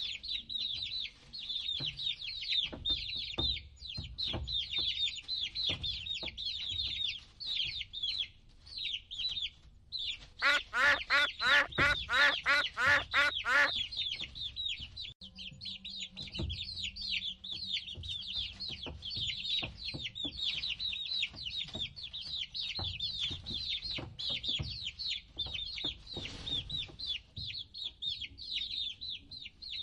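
A group of baby chicks peeping continuously, high-pitched and dense. About ten seconds in, a louder, lower run of about ten quick calls lasts some three seconds, with light taps and knocks underneath throughout.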